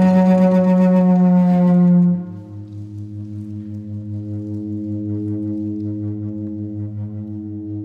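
Halldorophone (dórófónn), an electro-acoustic cello-like string instrument whose strings are sustained by feedback, playing a loud held note that drops away suddenly about two seconds in. What remains is a quieter low drone of several steady tones with a regular pulsing.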